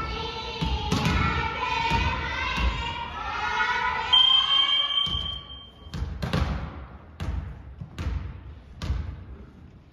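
Several voices calling out together, then a referee's whistle blown for about two seconds, followed by a basketball being dribbled on a hard court floor in even bounces a little under a second apart.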